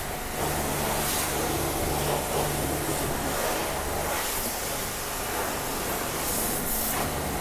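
High-pressure washer jet spraying water onto a car's front wheel and disc brake, a steady hiss of spray with a low hum underneath.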